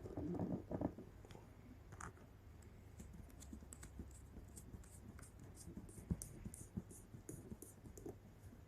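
Faint handling sounds: soft knocks and scratching, then a run of light, quick clicks.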